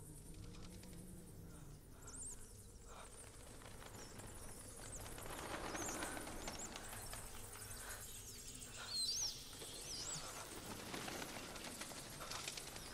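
A swarm of bats: many high, gliding squeaks over the rustle of massed wings, swelling around the middle and again near the end.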